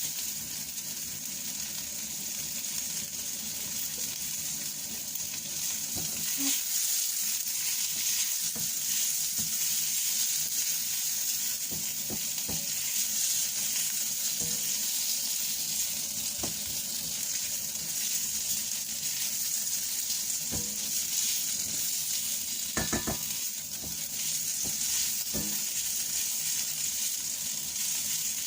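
Shredded chicken and sliced sausage sizzling in hot oil with shallot, garlic and chilli as they are stir-fried, a steady hiss broken by the utensil clicking against the pan now and then, with a quick run of taps near the end.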